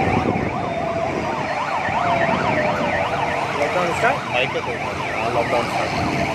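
Several vehicle sirens sounding together, their fast up-and-down yelps overlapping, while one slower siren wail glides steadily down in pitch.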